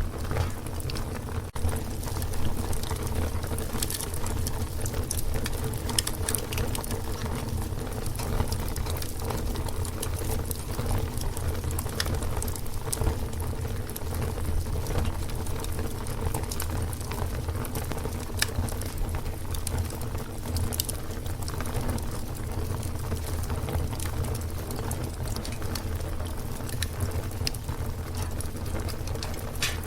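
Fire burning with a steady low rumble of flame and frequent sharp crackles and pops, scattered irregularly.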